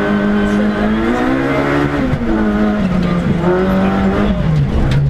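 Rally car engine heard from inside the cabin, revving hard under acceleration: its pitch climbs, drops sharply about two seconds in at a gear change, rises again, then falls away near the end.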